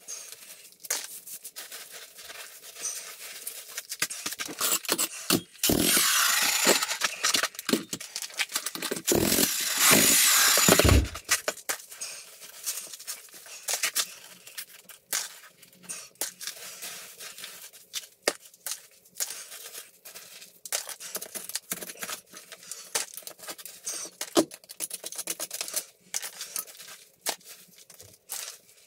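Broken concrete rubble and gravel being scraped and scooped by gloved hands, with irregular clinks and scrapes of stones, some dropped into a plastic bucket. Twice a denser, louder rush of noise stands out, the first for a few seconds and the second shorter.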